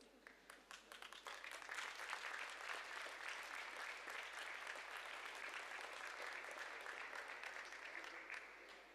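Faint audience applause: scattered claps that swell into steady clapping within about two seconds, then thin out near the end.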